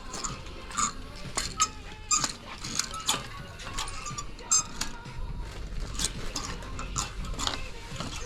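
Irregular light clinks and knocks of small hard objects, some ringing briefly.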